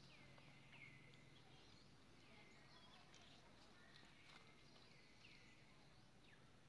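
Faint, high animal calls repeated about once a second, each sliding down in pitch and then levelling off.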